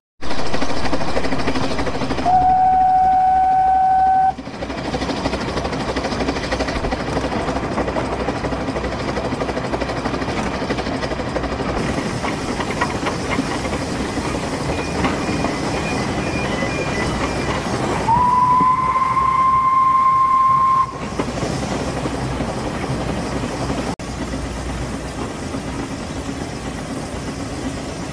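Narrow-gauge steam locomotive Welsh Pony running along the line, heard from its footplate as a steady rumble and rattle. Its steam whistle sounds twice in long blasts of about two and three seconds, the second higher-pitched than the first.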